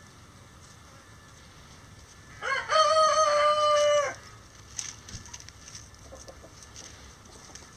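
Bantam rooster crowing once, about two and a half seconds in: a short rising start and then one long held note lasting about a second and a half.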